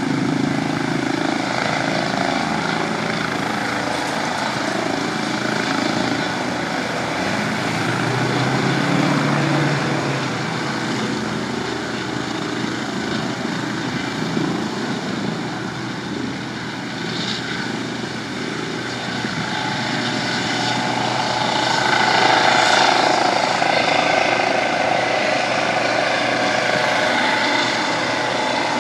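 Medical helicopter's rotor and engine running steadily on the ground, then growing louder about two-thirds of the way in as it lifts off and climbs.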